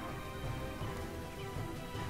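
Background music with sustained notes over a steady bass.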